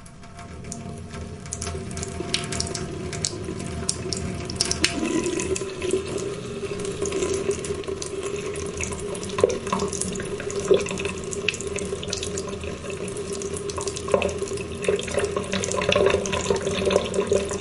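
Water running steadily, coming on as the sound begins and growing louder over the first few seconds.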